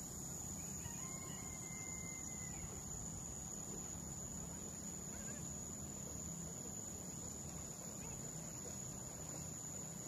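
Insects, crickets or cicadas, trilling in one steady, unbroken high tone, over a faint low hum.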